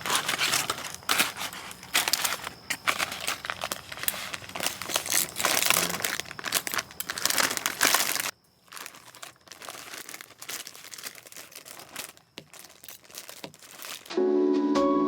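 Dense crinkling and crackling, close and fairly loud, which cuts off abruptly about eight seconds in to fainter, scattered crackles. Background music with sustained notes comes in near the end.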